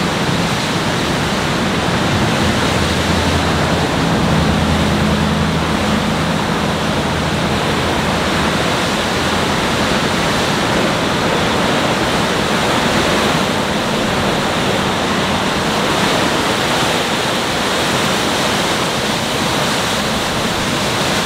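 Strong storm wind and rough lake surf making a steady rushing roar, with a deeper rumble from a gust between about two and eight seconds in.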